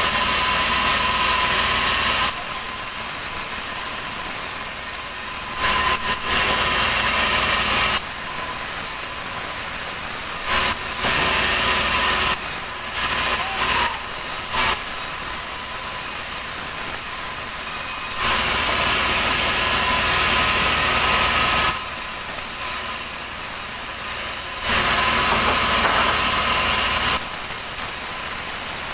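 Sawmill band saw running with a steady whine while a heavy ulin (Borneo ironwood) plank is fed through it. The noise swells several times into a louder hiss of blade in wood, for a moment up to a few seconds at a time, between quieter stretches.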